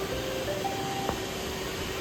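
Several Roomba robot vacuums running with a steady hum, while one plays a short beep tune of three notes rising in pitch, the last held longest, within the first second.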